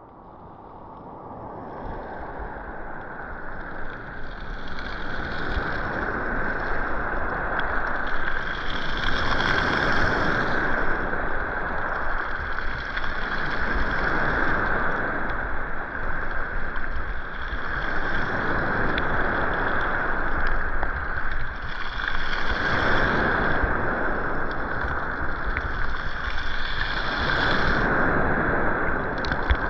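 Sea waves breaking and washing up on the beach, swelling and falling back about every four to five seconds; the sound fades in over the first few seconds.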